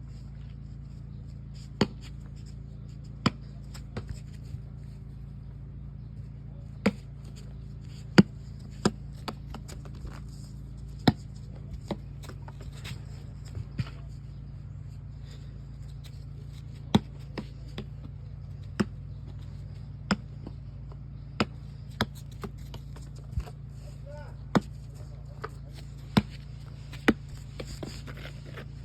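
A ball pounding against a hard surface: sharp single thuds at irregular intervals, from under a second to about three seconds apart, some much louder than others, over a steady low hum.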